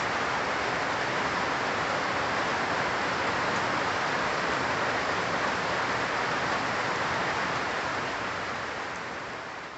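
Steady rain falling on dense leafy trees, an even hiss that fades out near the end.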